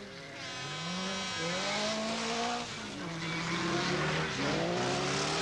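Autocross race car engines running hard, the revs climbing and dropping several times as the cars go past.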